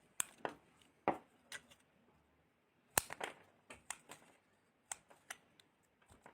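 Slime being squeezed and poked by hand, giving a string of sharp, irregular clicks and pops.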